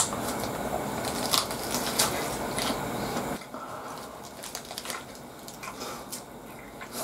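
Biting and chewing a burger wrapped in raw leaves: a sharp crunch at the first bite, then crisp leaf crunches and moist chewing, with the paper wrapper crinkling in the hands. A steady background hiss drops away about three and a half seconds in, leaving quieter chewing and small crinkles.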